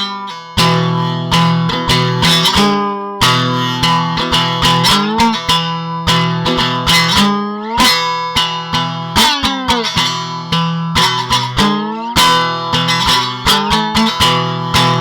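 Hekaton ST 63 electric guitar played for a sound demo: a run of picked notes and chords, with pitches sliding and bending, ringing over sustained low notes.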